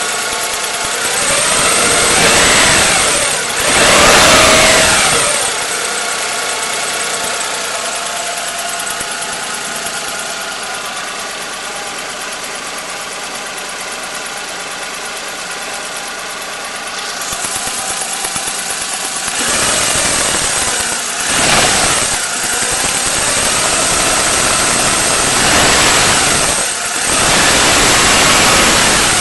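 Daewoo Matiz engine running warm with a high-pitched whistle, revved up and let back down several times near the start and again in the last third, idling in between. The owner says the whistle is not from the alternator or the power steering pump, and the timing belt and its roller were replaced recently.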